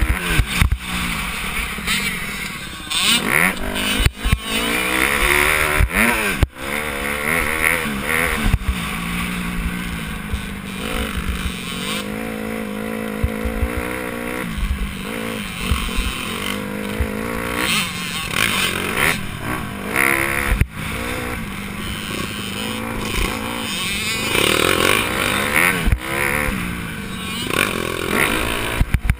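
Motocross dirt bike engine revving up and down as it is ridden around the track, its pitch rising and dropping again and again with gear changes and throttle, heard from a helmet-mounted camera with wind buffeting and sharp knocks over the rough ground.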